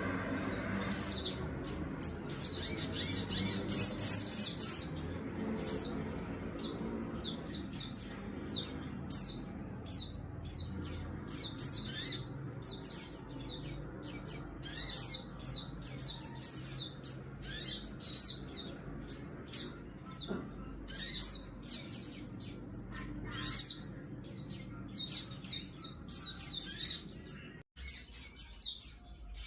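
Sogon sunbird singing in fighting mode: a rapid, unbroken stream of high, sharp chirps and trills, with a brief break near the end.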